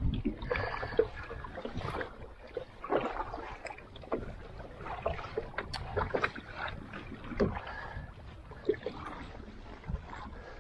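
Double-bladed paddle strokes dipping and splashing beside a small solo pack canoe, with water dripping off the blades and small knocks at irregular intervals.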